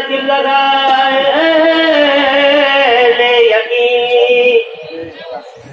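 A solo voice singing a Sufi devotional verse in Persian in long, drawn-out held notes. The pitch steps down twice, and the voice fades about three-quarters of the way through.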